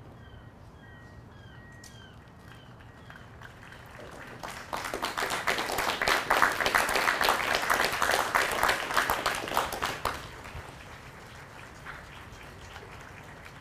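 Crowd applauding for about six seconds, starting about a third of the way in and then dying away.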